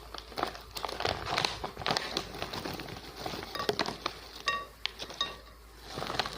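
Crunching into kerupuk, Indonesian fried crackers, at close range: a dense run of irregular crisp cracks and crackles.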